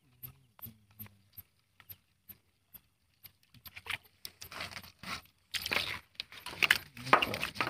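A net emptied into a plastic basin: water splashing and snails clattering and scraping in, loudest in the last few seconds. Before that, a faint regular ticking, about two or three clicks a second.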